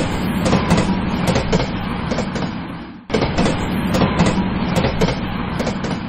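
Cartoon train sound effect: a train running along the track with a rapid clatter. It plays as two three-second runs, the second starting about three seconds in and fading away near the end.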